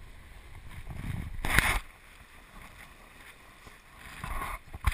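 River rapids rushing past an inflatable raft, with a loud splash of water about a second and a half in and another rising splash near the end.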